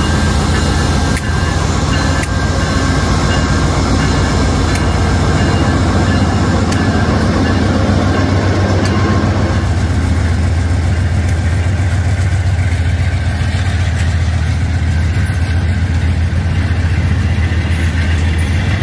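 VIA Rail GE P42DC diesel locomotive running under power as it pulls a passenger train away, a steady low engine drone, with the stainless-steel passenger cars rolling past behind it and a few sharp clicks from the wheels.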